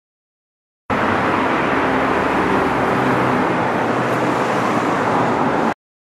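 Suzuki Every van's K6A 660cc three-cylinder DOHC engine running steadily. It cuts in about a second in and stops abruptly near the end.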